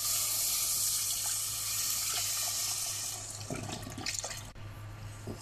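Milk pouring from a carton into a metal pot of flour-and-butter roux for béchamel, a steady splashing hiss that stops about three seconds in. A wire whisk then starts clicking against the pot as the milk is stirred in.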